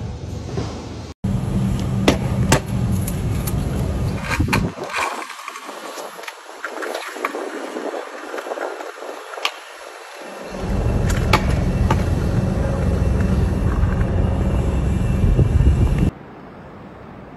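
Stunt scooter rolling and landing on concrete: wheels running over the pavement with many sharp clacks from impacts, over a heavy low rumble.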